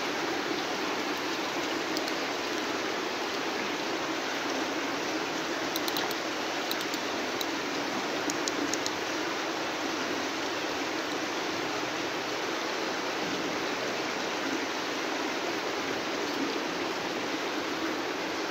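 Steady rushing of running water, with a few faint clicks about six to nine seconds in.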